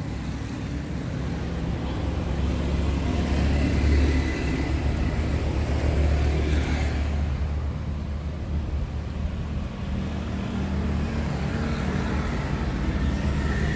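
A motor vehicle's engine running at a steady idle, a continuous low rumble.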